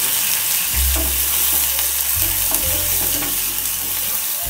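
Chopped onions and garlic sizzling in hot oil in a saucepan, with a steady hiss, while a wooden spoon stirs them.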